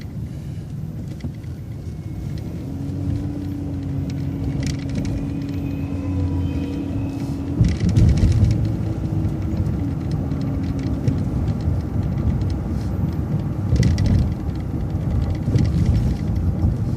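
City transit bus running along the street, heard from inside: a steady low rumble of engine and road noise, with a steady whine that starts about three seconds in and fades out about eleven seconds in.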